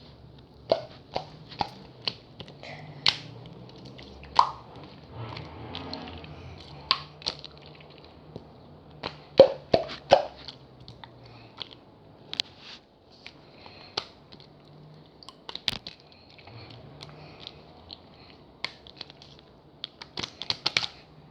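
Hands squeezing and kneading a soft jelly slime, with sharp irregular clicks and pops of trapped air, some in quick clusters, over a faint low hum.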